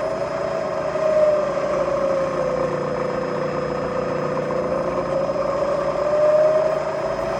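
Bridgeport Series 1 CNC vertical mill's 2 hp spindle running in low gear, a steady motor whine that sags in pitch through the middle and climbs back near the end as the spindle speed is adjusted.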